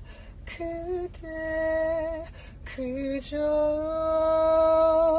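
A man's high voice singing a slow Korean ballad unaccompanied: a few short sung phrases, then one long held note near the end.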